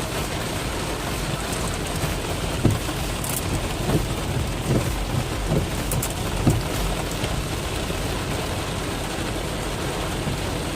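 Heavy rain drumming on a Ford Expedition, heard from inside the cabin as a steady hiss over the low running of its engine, with a few scattered thuds.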